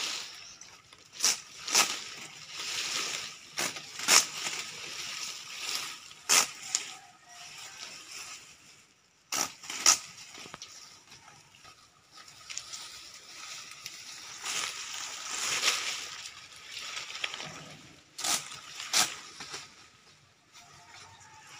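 Green coconut palm fronds rustling and scraping as they are handled, broken by sharp cracks every few seconds, several of them in quick pairs.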